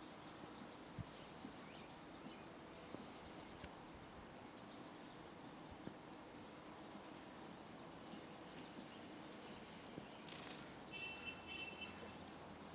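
Faint outdoor background hiss with a few scattered faint bird chirps. About ten and a half seconds in comes a brief rush of noise, then a quick run of repeated high chirps.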